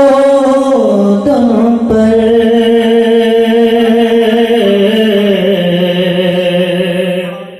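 A man singing a naat, an Urdu devotional poem, solo, drawing out long held notes that step down in pitch. The last note fades out near the end.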